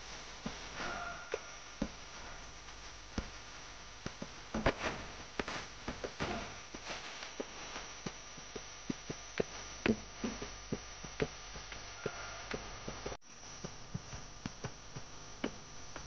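Mountain bike rolling over a rocky dirt trail: irregular clicks and knocks as the bike rattles over stones and roots, over a steady background noise.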